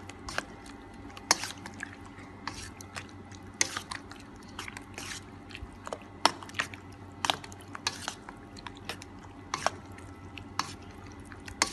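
Marinated sliced pork being mixed by hand in a metal bowl: irregular wet clicks and smacks, about one or two a second.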